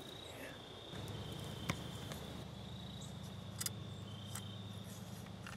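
Evening chorus of crickets: a steady high trill with pulsing stretches. A few sharp clicks stand out, the loudest about two seconds in, and a low steady hum comes in after about a second.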